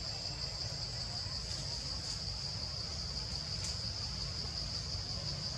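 Steady, unbroken high-pitched drone of a forest insect chorus, with a low rumble underneath.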